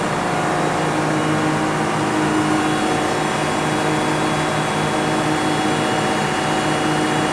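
Caterpillar G3512 natural-gas engines running steadily with their generators at 1,800 RPM, a constant engine-room drone with steady hum tones.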